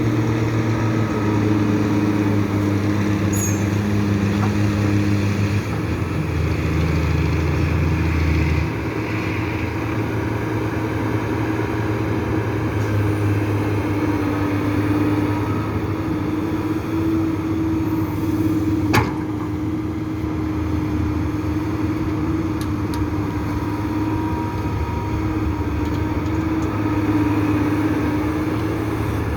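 Heavy diesel engine of an excavator running steadily while it loads soil into a dump truck, its note shifting around six and nine seconds in. A single sharp knock comes about nineteen seconds in.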